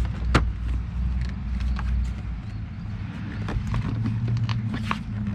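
Plastic dashboard trim being handled and pressed into place: a series of scattered sharp clicks and light knocks, the sharpest about a third of a second in, over a steady low hum.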